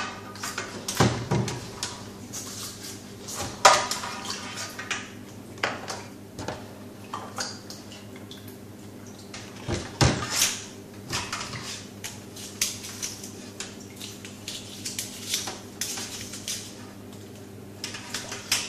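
Brush scrubbing inside the propeller chamber of a Deltec MCE300 skimmer pump over a stainless-steel sink: irregular scratching and small plastic clacks and knocks, the loudest about three and a half seconds and ten seconds in, over a steady low hum.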